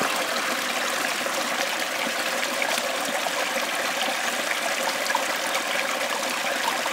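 Mountain creek running, a steady even rush and trickle of flowing water.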